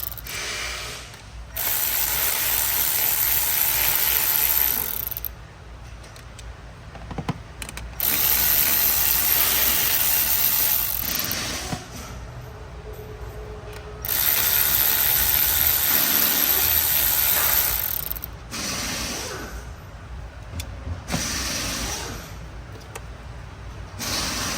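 A ratchet wrench undoing engine bolts. It runs in three long spells of a few seconds each, with quieter pauses and shorter bursts between them.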